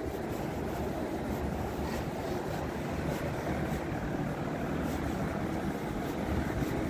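Street traffic: cars passing at close range, a steady noise of engines and tyres.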